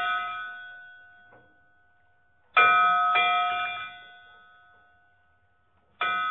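A metal bell struck again and again, each strike ringing with several clear tones and fading slowly. A strike is already ringing out at the start, two quick strikes come about two and a half seconds in, and two more come near the end.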